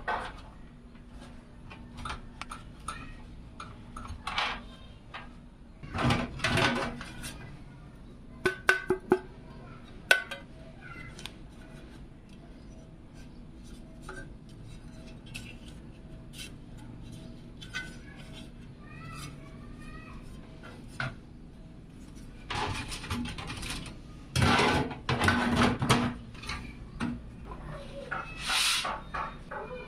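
Scattered clicks, clinks and rustling handling noise, with louder clusters about six seconds in and again from about 22 to 27 seconds in.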